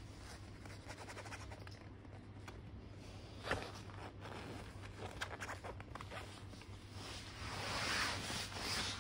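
A bedsheet rustling and a plastic cable tie scraping over the fabric as a kitten paws and pounces at it, with a sharp tap about three and a half seconds in and a louder stretch of rustling near the end as the kitten burrows under the sheet.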